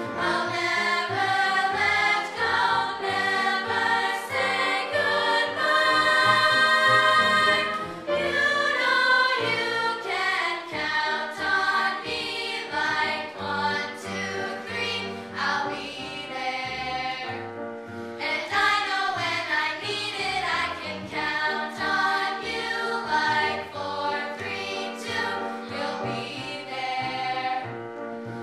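Girls' chorus singing a song together, with sustained sung notes changing pitch phrase by phrase.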